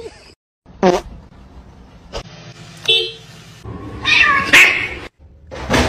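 Two domestic cats yowling and meowing at each other in a face-off: a string of separate cries, the longest and loudest about four to five seconds in.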